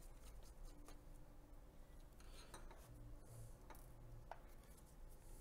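Near silence, with a few faint small clicks and light rubbing from gloved hands handling the opened laptop's internal connectors and board.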